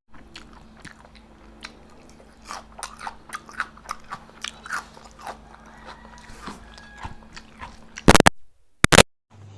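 Close-miked eating: a run of chewing with quick wet mouth clicks, then two loud, brief crunching bites near the end.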